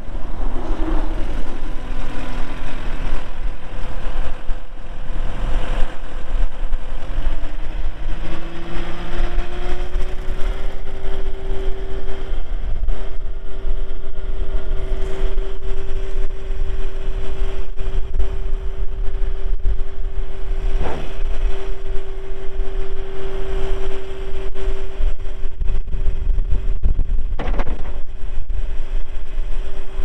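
Kubota SSV75 skid steer's four-cylinder diesel engine running, its pitch rising for a few seconds about a quarter of the way in and then holding a steady whine as the loader arms raise the bucket. Two short knocks come in the second half, and heavy wind buffets the microphone.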